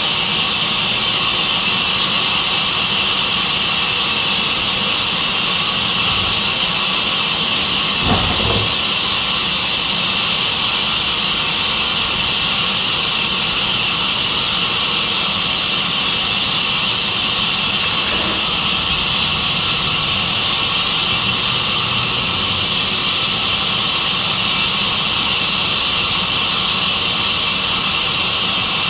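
Sawmill band saw running steadily, giving a loud even hiss, with a single brief knock about eight seconds in.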